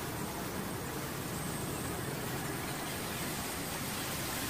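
Steady hiss of water spraying from sprinkler nozzles across solar panels, over a low rumble.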